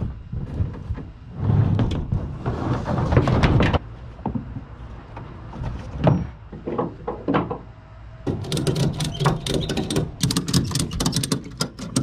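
A jumble of irregular knocks and thuds with low rumbling, then a quick run of sharp clicks over the last few seconds.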